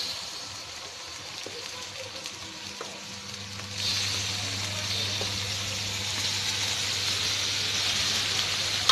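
Raw beef pieces tipped from a plastic basin into hot oil in a wok, frying and sizzling. The sizzle is quiet at first and jumps louder about four seconds in as the meat hits the oil, then keeps going steadily.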